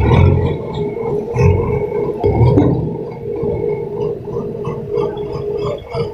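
Backhoe loaders working a recovery: a steady engine drone with a hydraulic whine, and three low thuds in the first three seconds.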